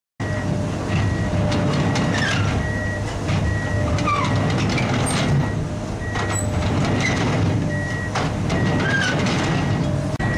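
Komatsu PC200 amphibious excavator travelling on pontoon track undercarriage: its diesel engine runs steadily under the clatter of the steel track links, while a high-pitched travel alarm gives short beeps that repeat every second or so.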